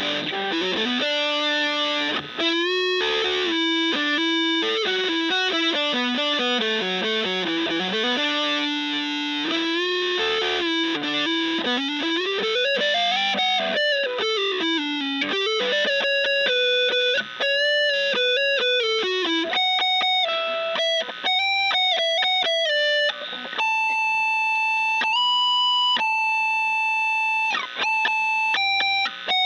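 Electric guitar played through three single-coil pickups wired in series. It plays quick single-note runs with slides and bends, then longer held notes in the last few seconds.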